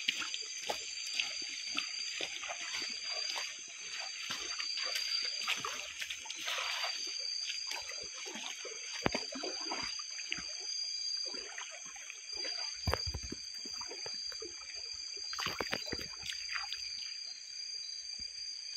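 Someone wading through a shallow river, water sloshing and splashing around the legs with each step. Underneath runs a steady high-pitched drone of night insects.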